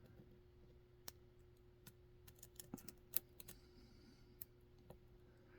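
Faint, scattered clicks of a lock pick working in the keyway of a Dom 333RN lock, ticking against the pins as they are pushed up; one sharper click a little past three seconds in.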